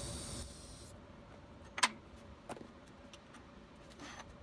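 TIG welding arc on stainless steel hissing steadily, cutting out about half a second in, with a fainter hiss fading soon after. Then a few metal clinks on the steel welding table, the loudest a sharp ringing clink just under two seconds in.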